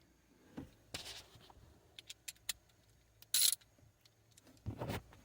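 Faint handling of hand tools and metal parts while bolts are refitted: scattered light clicks and clinks, with a short sharp scrape about three and a half seconds in and a few knocks near the end.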